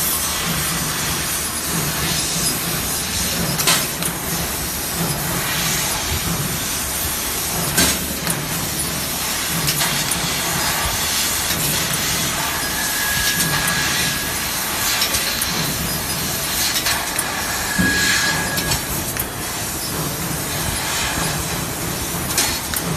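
1000 W laser cutting machine at work: a steady hiss with a few sharp clicks, a low hum pulsing about once a second, and a brief high tone twice in the second half.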